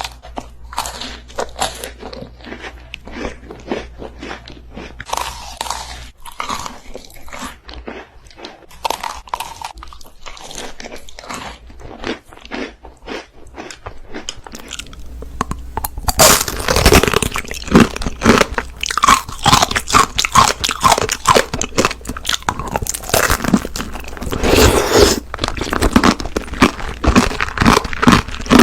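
Close-up eating sounds: crisp, crunchy bites and chewing, a rapid run of sharp crunches. About halfway through the crunching becomes louder and denser.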